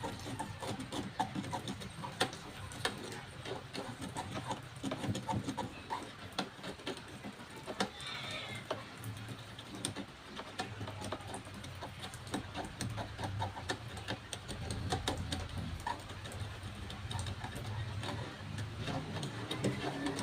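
Scattered small clicks and knocks of hand work on washing-machine parts, over a low steady hum.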